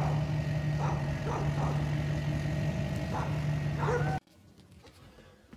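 Duramax diesel pickup truck engine running with a steady low hum as the truck creeps along towing a loaded trailer, with a few short, higher sounds over it. The sound cuts off abruptly about four seconds in; a sharp click comes at the very end.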